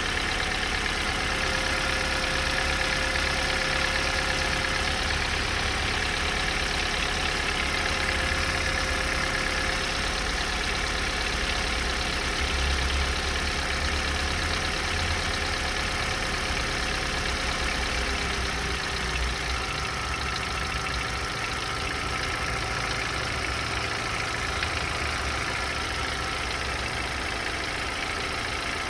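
Opel Z14XEP 1.4-litre four-cylinder petrol engine idling steadily with a knock (стук).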